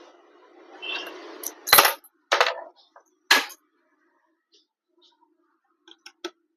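Three sharp clicks and taps of small hard parts and tools being handled while working inside a laptop, preceded by a faint rustling hiss. A few light ticks follow near the end.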